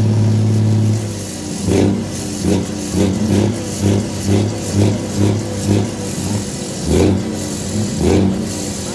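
Volvo FH truck's inline-six diesel engine held at high revs for about a second, then dropping and revved in a run of short, quick blips, about two a second.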